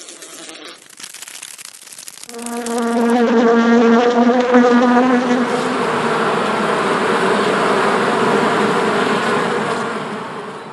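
Insect wings buzzing: a pitched buzz starts about two seconds in, then thickens into a dense, swarm-like drone that fades out near the end. A dry clicking comes before it.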